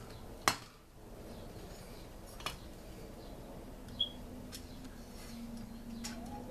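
Metal clicks and clinks of a Stihl MS 290 chainsaw's cylinder and piston being handled as the cylinder is worked down over the piston during engine reassembly. A few separate sharp clicks, the loudest about half a second in.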